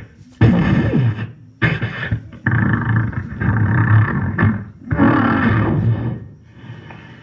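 A beatboxer making vocal sound effects with his mouth: several long, rough bursts with short gaps between them, trailing off near the end.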